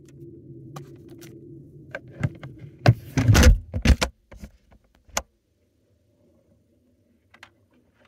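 The lid of an ICECO JP50 Pro portable 12V compressor fridge-freezer is being lowered and shut, with handling knocks and a few loud thumps around three to four seconds in. After that, the sound inside the closed fridge is muffled to near quiet, with only a faint low hum and a couple of small clicks.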